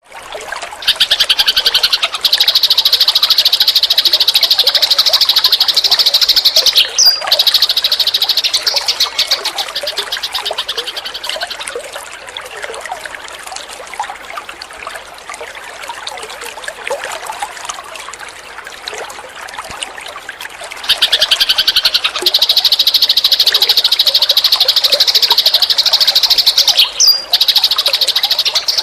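Eurasian tree sparrows chirping in a loud, dense, rapid high-pitched chatter, easing to softer scattered chirps in the middle before the loud chatter returns. The same passage repeats about twenty seconds apart, as a looped training recording.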